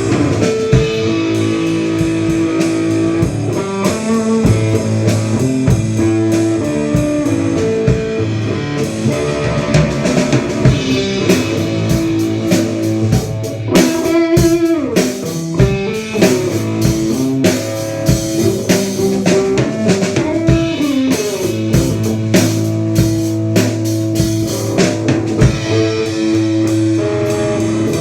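Band playing an instrumental blues-rock passage: electric guitar with sustained and bent notes over a steady drum kit beat.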